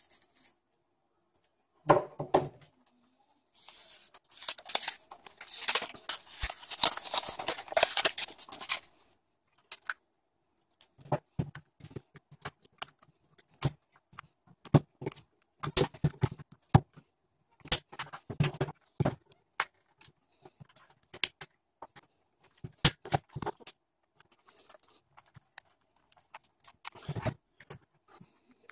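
Plastic case of a Toshiba laptop battery pack being pried open with a knife. A knock about two seconds in, then several seconds of scraping and crackling as the blade works along the seam, then scattered sharp clicks and snaps as the case's clips give way.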